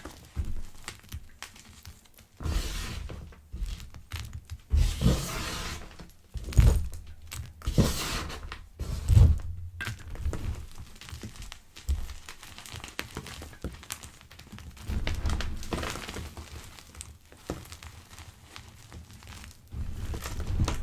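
Pebbles of gym chalk crushed by hand in irregular crunches and soft crackles, with dull thuds under the loudest crunches. The biggest crunches come in the first half, and lighter crackling follows.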